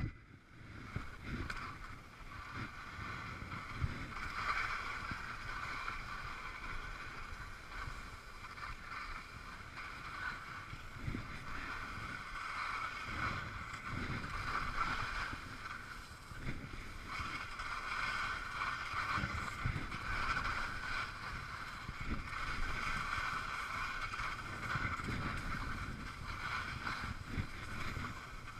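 Skis sliding and scraping over packed snow in a steady hiss, with wind rumbling on the microphone.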